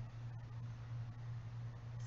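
Low, steady electrical hum under faint room noise.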